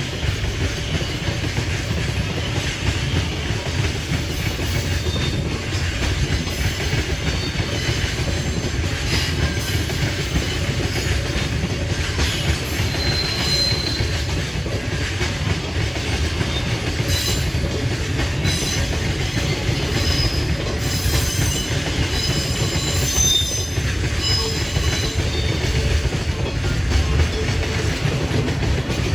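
Freight train of container wagons rolling past: a steady low rumble of steel wheels on the rails, with short high-pitched wheel squeals now and then through the middle.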